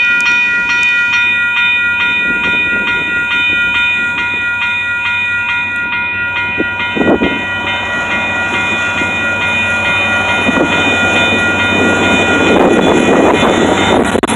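A grade-crossing warning bell ringing in rapid, evenly spaced strokes as a diesel-hauled freight train led by CSX locomotives approaches. The rumble of the locomotives and wheels grows louder through the second half, loudest near the end as the lead units reach the crossing, while the bell fades out.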